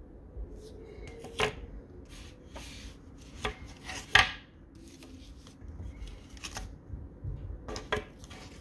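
Clear plastic coin sleeves holding copper rounds being handled and swapped: plastic rustling and rubbing, broken by several sharp clicks and knocks, the loudest about four seconds in.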